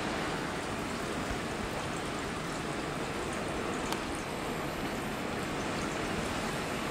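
Steady noise of a coastal storm: wind gusting and heavy rain falling, with some wind rumble on the microphone.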